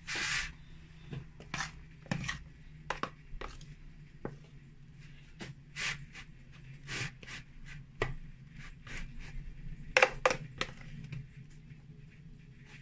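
Metal spoon scooping thick cake batter and spreading it into a floured metal baking tin: irregular clinks, taps and scrapes of the spoon against bowl and tin, with two louder knocks about ten seconds in. A low steady hum runs underneath.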